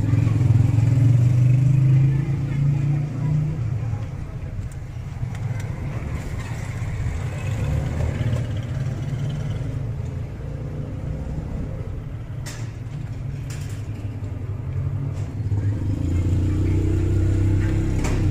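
A motor vehicle engine running close by, a low rumble that is loudest at the start and swells again near the end. A few light clicks come about two-thirds of the way in and again at the close, as the intercom's outdoor panel is handled.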